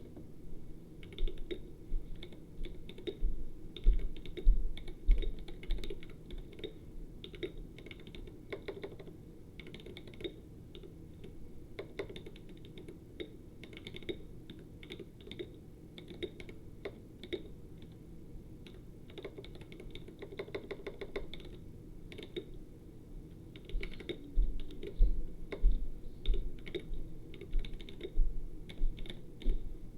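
Typing on a mechanical keyboard with lubed Glorious Panda tactile switches, a poppy clacking of irregular keystrokes. A rapid run of keypresses comes about two-thirds of the way through, and heavier thuds stand out in stretches near the start and toward the end.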